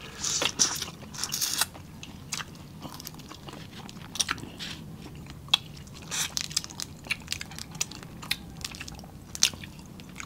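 Close-miked eating sounds: wet chewing, sucking and lip smacks as crab and shrimp are eaten and shrimp are peeled by hand, with scattered sharp clicks and crackles. The loudest stretch is a run of hissy sucking sounds in the first second and a half.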